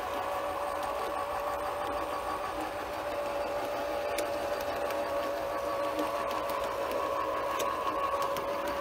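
Scale model of the Burlington Zephyr streamliner running along its track, its electric drive giving a steady, even-pitched whine, with a few faint clicks.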